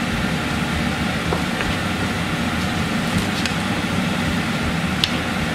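Kitchen extractor hood fan running steadily, with a few faint light ticks.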